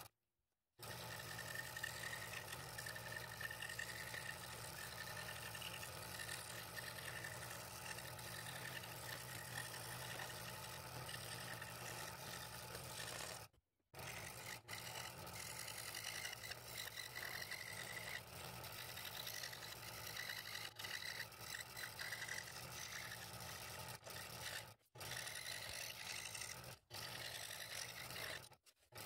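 Scroll saw running, its fine blade cutting thin scrap wood: a steady buzz of motor and blade with a low hum. The sound drops out abruptly several times, once for most of a second at the start and briefly about halfway and near the end.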